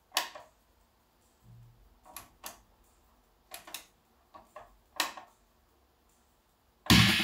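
Input selector push buttons on a Toshiba SB-M2 integrated amplifier clicking as they are pressed one after another, about seven clicks over five seconds, with a brief low hum through the speakers about a second and a half in. Music from the speakers cuts back in near the end, as the phono input is selected again.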